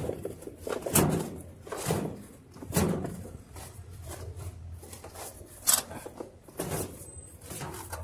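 Plastic outer tub of a Frigidaire top-load washer knocking and scraping against the machine as it is worked up off the transmission, snagging as it goes. A string of irregular bumps and scrapes, the sharpest a little before the six-second mark.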